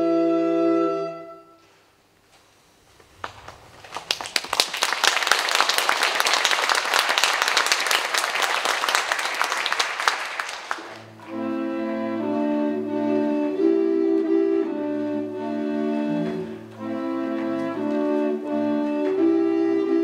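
A recorder ensemble's held chord dies away about a second and a half in, and after a short hush the audience applauds for about seven seconds. Then the recorder consort, with bass and great bass recorders in the low parts, starts playing again in shifting chords.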